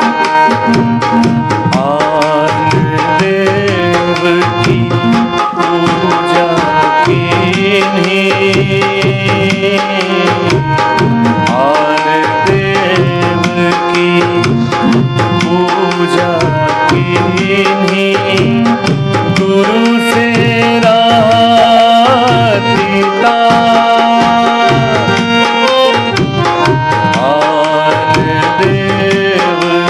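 Tabla playing under a harmonium melody of held, reedy notes: an instrumental passage of a Hindi devotional bhajan.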